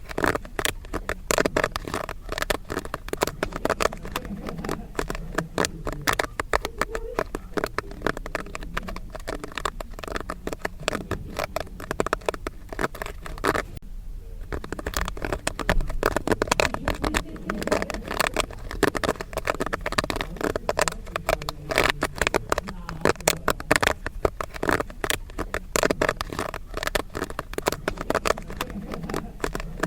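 Popcorn kernels popping in quick, dense, irregular bursts, with a brief lull about halfway through.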